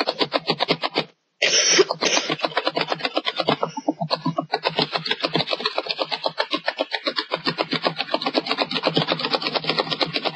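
ooVoo video-chat message alert sound repeating rapidly, about seven times a second, as a flood of messages comes in. It drops out briefly about a second in, with a short burst of noise just after.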